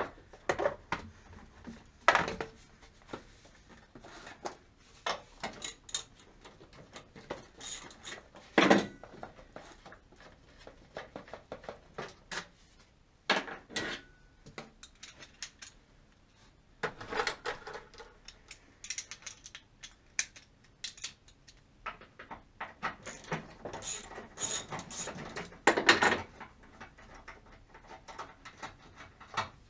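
Irregular clicks, clinks and knocks of hand tools and engine parts being handled in a car's engine bay, with a few sharper knocks among them.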